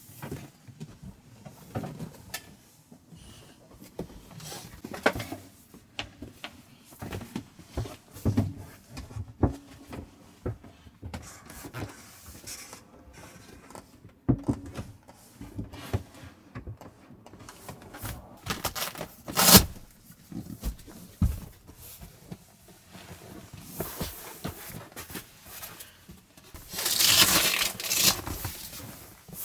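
Scattered knocks and clatter of things being handled, with one sharp, loud knock about two-thirds of the way in and a burst of rustling noise near the end.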